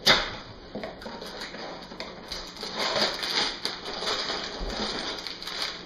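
Cardboard Lego box being opened and its plastic bags of bricks handled: a sharp snap at the start, then a stretch of crinkling and small rattling clicks from about two seconds in.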